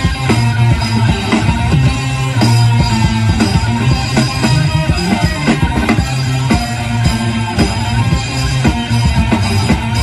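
Instrumental rock-style music: guitar and drum kit playing a steady beat, with no singing.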